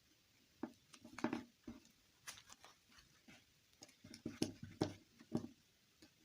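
Small objects being handled up close: irregular soft taps, clicks and rustles, busiest about a second in and again in the second half.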